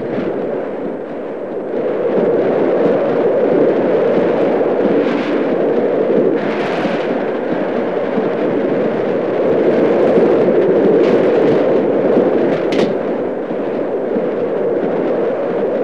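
Steam-hauled express mail train running at speed: a loud, steady rushing roar, broken by a few sharp cracks, the clearest about 13 seconds in.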